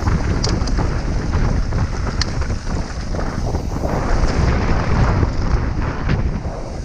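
Wind buffeting the action camera's microphone while a Trek Remedy mountain bike's tyres rumble over a dry, gravelly downhill trail at speed. Scattered sharp clicks and rattles from the bike jolting over stones.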